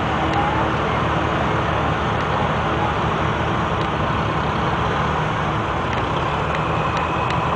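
Engines of heavy road vehicles running steadily close by, a low engine note under road and traffic noise.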